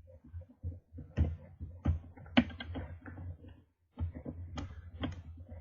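Irregular small metal clicks and taps of a hook pick and tension tool working the pins in the keyway of a Master Lock No. 1 padlock, with a sharper click about two and a half seconds in.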